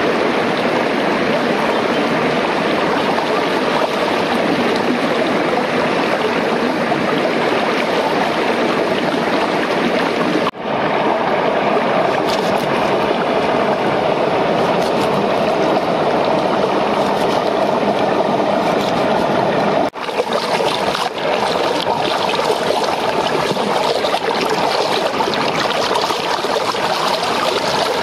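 Waterfall water rushing steadily, an even, loud wash of falling water. It breaks off for a split second twice, about ten and twenty seconds in.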